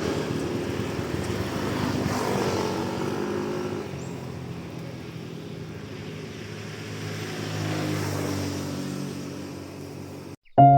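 Passing motor vehicles: engine sound that swells and fades twice, then cuts off suddenly near the end.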